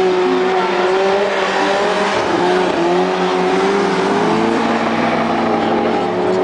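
Rallycross car engines running at high revs around the track. The engine pitch drops about two seconds in and climbs again.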